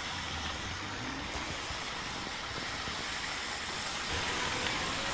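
Steady hiss of heavy rain and car tyres on a wet road, with a low rumble of traffic.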